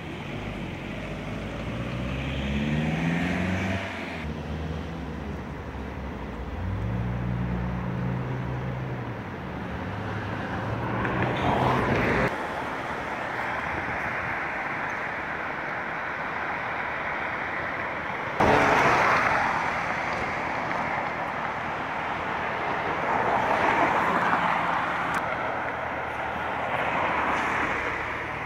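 Street traffic: cars passing on a wet road, their tyre hiss swelling and fading several times, over a low engine hum in roughly the first half. The sound changes abruptly a few times.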